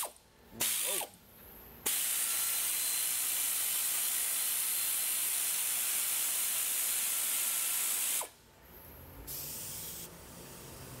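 Pneumatic air ratchet running as it tightens a new exhaust tailpipe clamp: a couple of short blips, then a steady hissing run of about six seconds that stops suddenly, and a shorter, quieter burst near the end.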